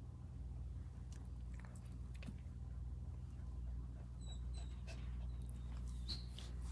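Three-week-old Coton de Tulear puppies giving small high squeaks and whimpers, a few short ones past the middle, over a steady low hum.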